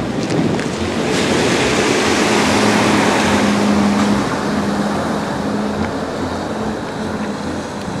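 A vehicle driving past on a wet city street: tyre and engine noise swells over a couple of seconds and fades again, with a low steady engine hum at its loudest.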